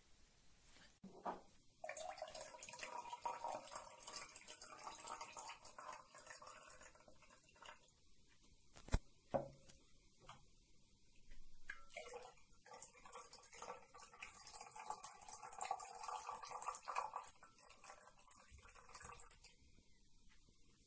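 Faint trickling and dripping of food-coloured water poured into a tall glass cylinder of sunflower oil, in two stretches, with a single sharp knock about nine seconds in.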